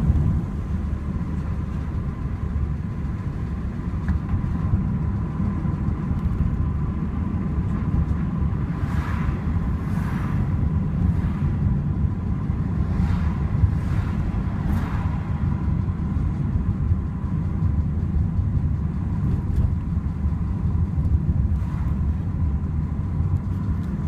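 Steady road and engine rumble inside the cabin of a Ford Mondeo TDCi diesel driving along, with a few whooshes of oncoming cars passing between about 9 and 15 seconds in. The front-wheel ticking is not clearly audible over the rumble.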